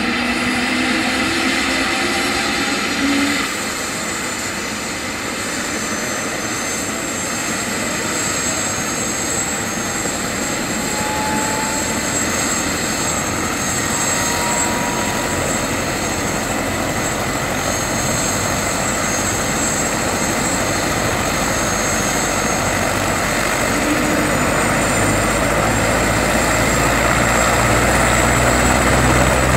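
Airbus AS350 Écureuil helicopter running on the ground with its rotor turning: a steady high turbine whine over the rotor noise. Near the end the whine climbs slightly and a low rotor beat grows louder as it spools up for take-off.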